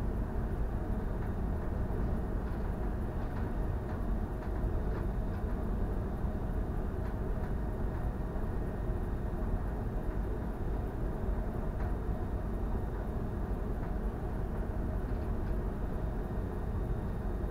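Steady low rumble of a cargo ship under way at sea, with a few faint steady hum tones running through it.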